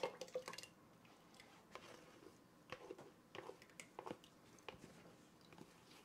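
Faint, scattered scrapes and light clicks of a spatula working melted butter out of a small microwave dish into a stainless steel mixing bowl.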